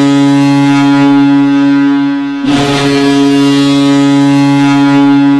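Boston Bruins goal horn sounding: a loud, steady low horn tone that breaks off briefly about two and a half seconds in, then sounds again.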